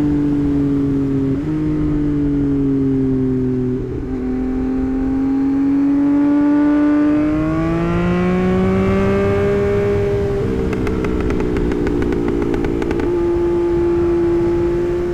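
2024 Yamaha MT-09's three-cylinder engine running under way on a new tune. Its pitch dips slightly, then climbs steadily for about six seconds as the bike accelerates, and then holds level. A rapid crackle from the exhaust comes partway through the climb and lasts a couple of seconds.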